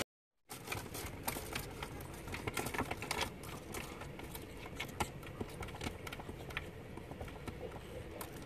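A cat batting at the ball in a plastic circular track toy, making quick, irregular plastic clicks and rattles that start about half a second in, over a faint low hum.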